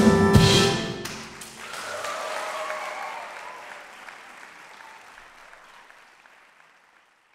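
A student ensemble of flute, saxophone, clarinet, trumpets, trombone, cello, piano and drums ends a blues improvisation on a final chord with a cymbal crash about half a second in. The chord rings away and audience applause follows, fading out near the end.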